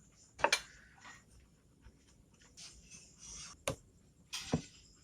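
Clutch parts of a motorcycle engine being fitted by hand: three sharp clicks, about half a second in, then two more close together near the end, with light scraping and handling noise between them.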